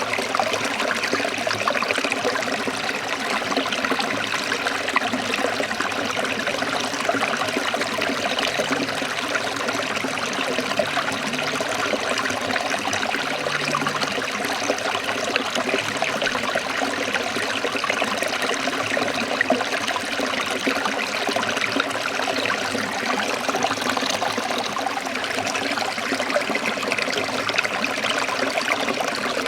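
Forest stream of water trickling steadily, an even rush with no break.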